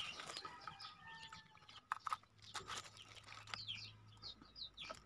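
Faint crinkling and rustling as a small cardboard box is opened and a plastic bag holding scope mounts is drawn out, with a couple of sharp clicks about two seconds in. Birds chirp faintly in the background.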